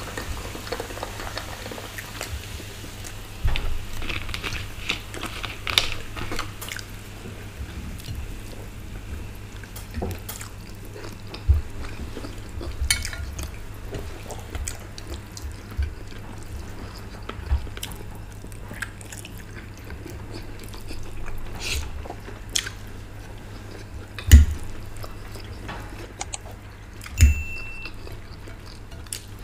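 Water poured from a plastic bottle into a glass jug for about the first second, then forks clicking and scraping on china plates during eating. Scattered light clicks run throughout; two sharper clinks come near the end, the second ringing briefly.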